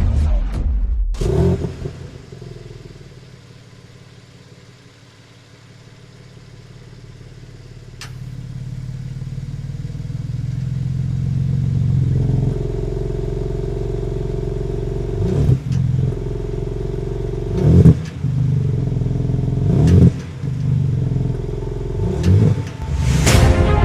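BMW M3 Touring's 3.0-litre twin-turbo straight-six just after starting: the revs flare, then settle to a low idle. The idle climbs again, and the engine is blipped sharply four times in the second half.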